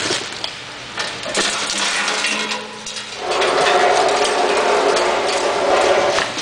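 A mesh bag is handled on a stainless steel fill spout, with a few knocks. About three seconds in, a louder, steady rushing noise starts and holds until near the end.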